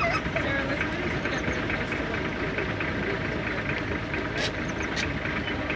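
Safari vehicle's engine running steadily, with faint voices underneath and two short clicks near the end.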